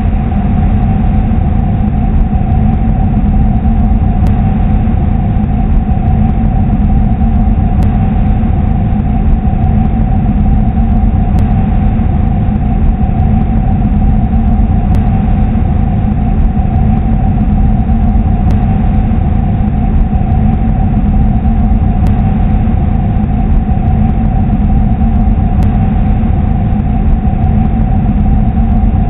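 Steady droning rumble presented as the 'sound' of Atlas, a moon of Saturn: a space-sound rendering with two held tones over a dense, noisy hum, and a faint high click about every three and a half seconds.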